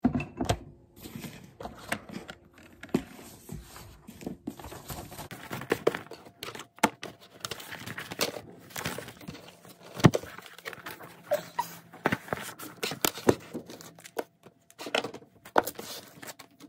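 Small objects being handled: many irregular clicks, knocks and light clinks, with rustling between them.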